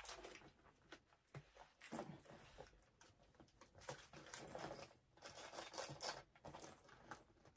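Faint scattered clicks and rustles of a small handbag being handled and set down.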